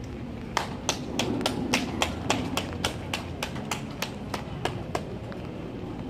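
Hand clapping: a run of about fifteen sharp, evenly spaced claps, roughly three a second, starting about half a second in and stopping about a second before the end.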